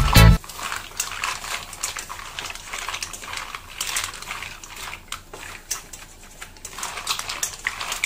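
Cooking sounds from a pan: irregular light clicks and crackling. Background music cuts off just after the start.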